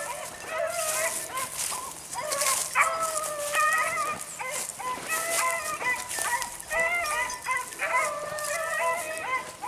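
Beagles baying in repeated drawn-out, howling calls, rabbit hounds giving voice as they run a rabbit's scent trail. Dry brush and grass rustle underfoot beneath the calls.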